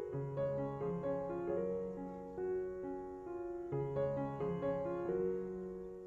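Background piano music: a slow, gentle melody of single notes over held low bass notes.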